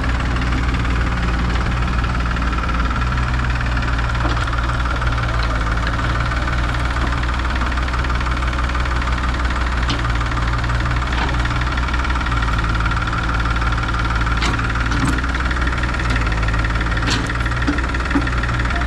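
Heavy diesel engine running steadily at low revs with a deep, even hum, and a few sharp clicks or knocks in the second half.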